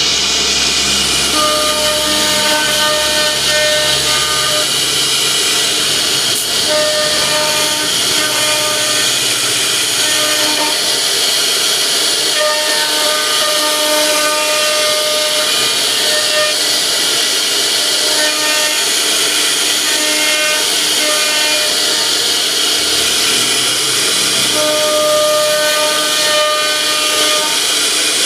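A power tool cutting a decorative design into wood, giving a steady high hiss, with a faint tone that comes and goes every second or two as the cut changes.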